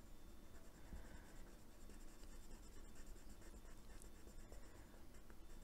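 Faint scratching of a Derwent metallic watercolour pencil colouring on a paper page, pressed firmly.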